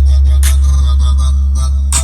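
Bass-heavy Brazilian funk track played loud through a pickup truck's aftermarket car audio system: a deep, steady bass under sharp percussion hits.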